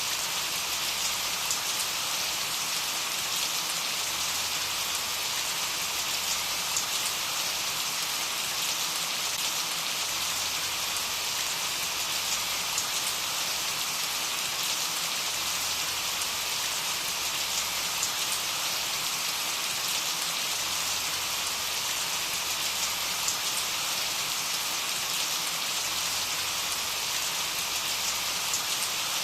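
Steady rain falling, an even hiss with many small drop patters landing on a surface.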